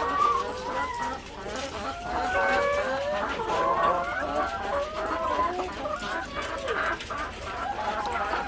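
A flock of caged layer hens clucking and calling, many birds at once in overlapping short calls.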